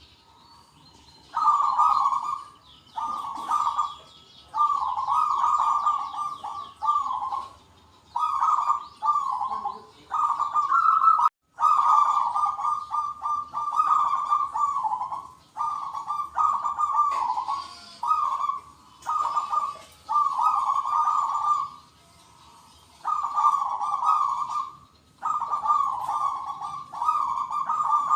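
Zebra doves (perkutut) cooing, several birds answering one another in back-to-back phrases of rapid, stuttering coos, each a second or two long with short gaps between. Fainter high chirping from other small birds sits behind them.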